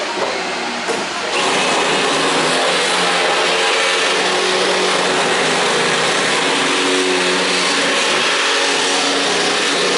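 Corded vacuum cleaner running with a steady, airy whir, starting abruptly about a second in.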